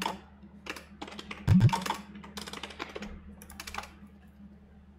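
Computer keyboard typing in short bursts of keystrokes, with two heavier low thumps, one at the start and another about a second and a half in. The keys stop about four seconds in.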